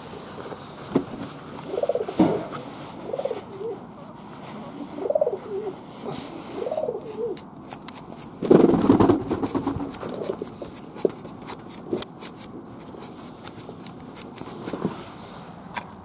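Fantail pigeons cooing, four or five rising-and-falling coos in the first half. A loud rustle comes about halfway through, followed by scattered light clicks.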